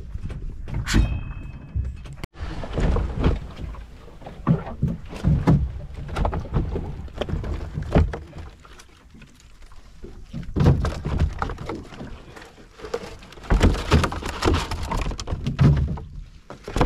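Irregular thumps and knocks aboard a small open fishing boat as gear and catch are handled.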